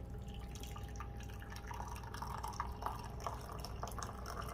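Brewed coffee being poured from a French press into a mug: a thin stream with small irregular splashes and drips.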